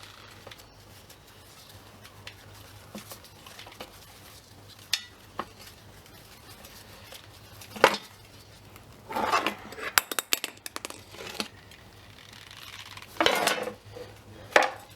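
Scattered metal clinks and knocks of a spanner, bolts and steel parts being handled while a reel mower's deck is unbolted. The loudest is a single sharp knock about eight seconds in, followed by a quick run of clinks a second or two later.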